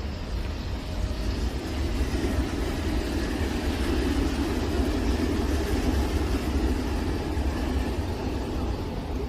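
Street traffic noise with a vehicle passing close by: a steady rumble that swells for several seconds and eases off near the end.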